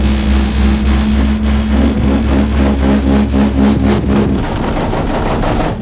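Steady low machine hum with a rattling clatter that grows in the second half, then cuts off suddenly at the end.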